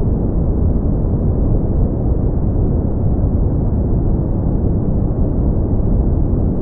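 Steady brown noise: a deep, even rumbling hiss, strongest in the lows and fading out in the highs, without change.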